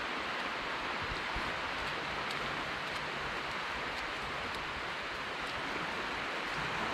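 Steady hiss of small waves washing onto a flat sandy beach, mixed with wind, with a few faint clicks.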